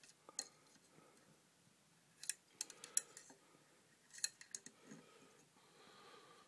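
Faint, sharp clicks and taps of small-object handling, in two short clusters, over quiet room tone.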